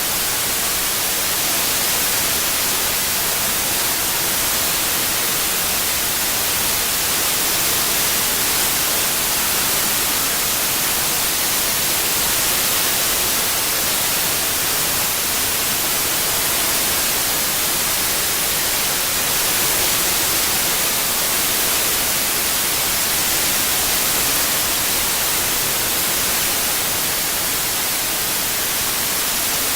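Synthetic white noise for tinnitus masking: a steady, even hiss with no tones or breaks, strongest in the high end.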